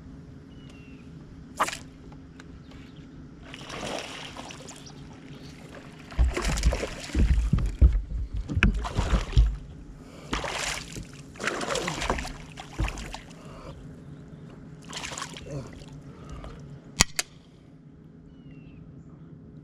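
Water splashing and sloshing in several bursts, loudest for a few seconds near the middle, over a steady low hum. Two sharp clicks are heard, one early and one near the end.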